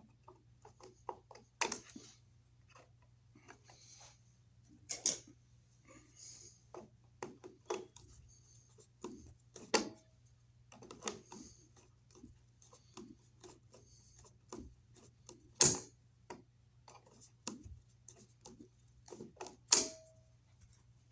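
Scattered clicks, taps and clinks of hand tools and metal hardware being handled at an electrical outlet box, with a few louder knocks, two of which ring briefly. A faint steady low hum runs underneath.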